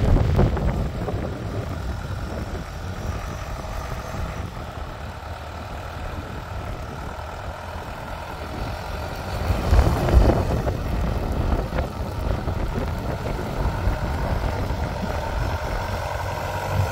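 Tucker Sno-Cat tracked snow vehicle's engine running as it climbs over a snowy rise and drives past, growing louder about ten seconds in.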